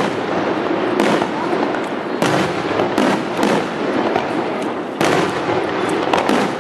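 Aerial firework shells bursting in a display: a sharp bang roughly every second, with dense crackling between them.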